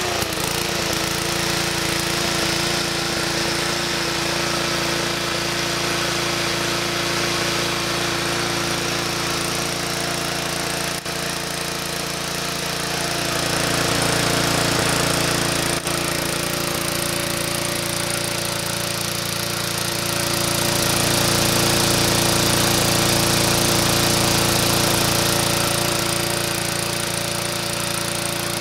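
Murray push lawn mower's small single-cylinder engine running steadily at a constant speed just after a pull start, freshly repaired with a new carburetor diaphragm and governor spring. It gets louder for a few seconds in the middle and again for several seconds later on.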